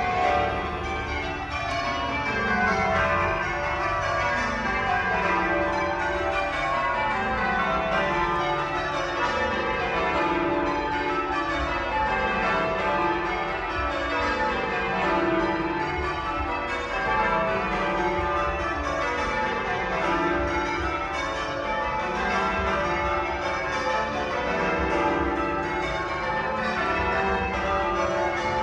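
A ring of twelve church bells being rung in English change ringing, struck one after another in rows that fall from the highest bell to the lowest and repeat over and over.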